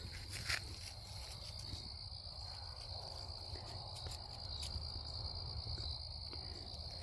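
Steady, high-pitched insect chorus in woodland, a constant trill, with a low rumble and a few faint clicks underneath.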